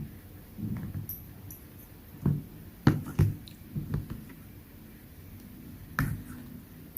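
Close-up eating sounds: a person chewing with scattered wet mouth clicks and smacks, the sharpest a little under three seconds in and again about six seconds in.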